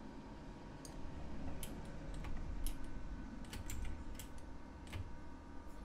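Computer keyboard keys being tapped in an irregular run of short clicks, starting about a second in: Blender shortcut key presses.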